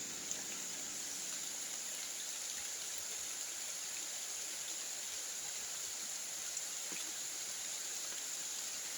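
Steady rain falling outside a small rock cave, an even hiss.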